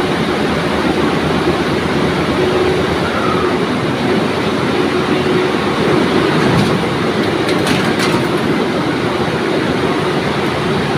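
Comber machines running: a loud, steady mechanical din with a constant hum, and a few light clicks in the second half.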